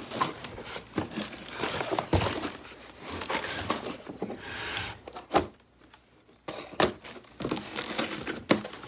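Packaging being opened and handled: irregular crinkling and rustling with sharp knocks, broken by a brief pause a little past the middle.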